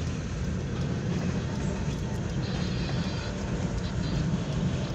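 Freight cars of a long mixed freight train rolling past a grade crossing at about 32 mph: a steady, even rumble of wheels on the rails, heard through the glass of a car.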